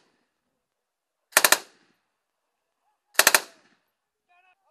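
Two short bursts of close automatic gunfire, a few rapid shots each, the first about a second and a half in and the second about three seconds in.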